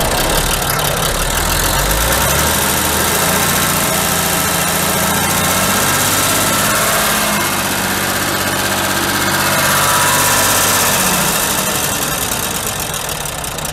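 The Jelcz M11 bus's Rába-built, MAN-licensed six-cylinder diesel engine is being revved. Its speed climbs from idle in the first couple of seconds, holds, dips, and rises again to its loudest about three quarters of the way through, then falls back near the end.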